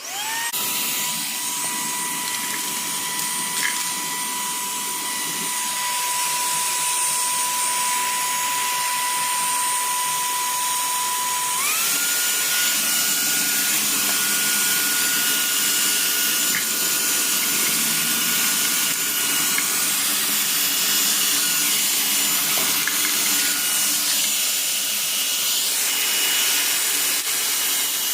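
Kenmore HV3005 11.1-volt brushless cordless handheld vacuum spinning up and running with a steady high whine over a rush of air, set to pick up spilled dry cat food and cereal. About twelve seconds in, its whine steps up to a higher pitch and holds there.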